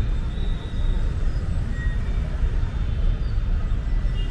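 Outdoor city street ambience: a steady low rumble, with a few faint, short high chirps.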